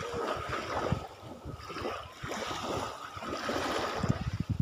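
Small waves washing up and draining back over a shallow sandy shore, in uneven surges.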